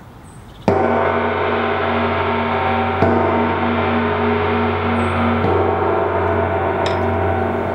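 Large gong on a stand struck three times with a mallet, about two and a half seconds apart, sounding the opening of a ritual. Each stroke rings on into the next, with a slowly pulsing hum.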